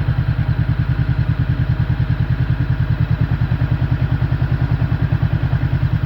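Honda CB500F's 471 cc parallel-twin engine idling with a steady, even pulsing. This is the noise and vibration heard with the clutch lever released, which a mechanic explains as normal play of the loose clutch plates.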